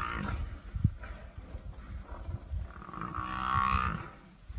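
Lions attacking a Cape buffalo: a loud, drawn-out animal call about three seconds in, lasting about a second, from the buffalo or a lion, with the tail of another call at the start and scattered low thuds throughout.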